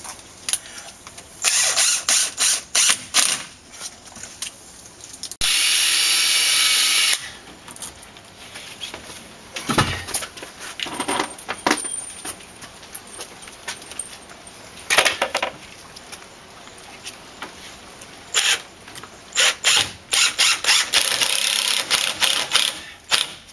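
Cordless screw gun driving screws into a door jamb. It runs in short stop-start bursts, with one steady run of about two seconds, and a further cluster of bursts near the end.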